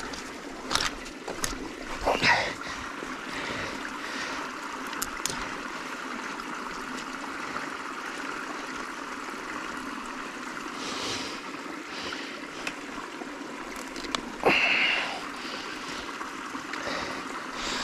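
A small beaver stream trickling and gurgling steadily, with a few short knocks and splashes as wooden stakes are handled in the water, the loudest near the end.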